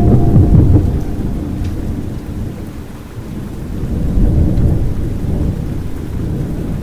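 Steady rain with thunder rumbling low. The rumble swells near the start and again about four seconds in.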